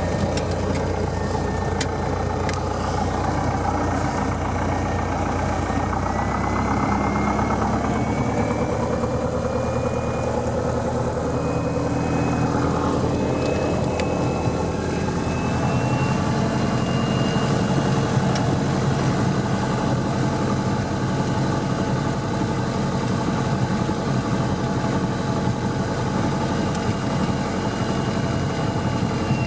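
1973 Cessna 177B Cardinal's four-cylinder piston engine and propeller running steadily. A faint tone rises slowly in pitch through the middle of the stretch as the engine note shifts.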